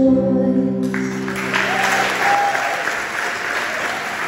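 Final acoustic guitar chord ringing out as the song ends, then audience applause breaking out about a second in and carrying on steadily.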